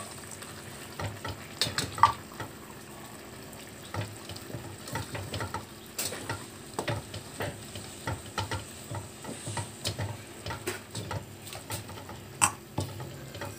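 Wooden spoon stirring a thick mixture of ground pork, diced potato, carrot and green peas in a stainless steel pot, with irregular scrapes and clacks of the spoon against the metal, the sharpest about two seconds in. Faint sizzling of the mix cooking underneath.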